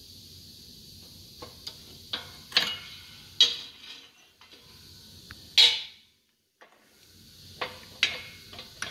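Steel parts and tools clinking and clanking as they are handled at the press after a control arm bushing has been pressed in: a string of sharp metallic knocks and clicks, the loudest about three and a half and five and a half seconds in.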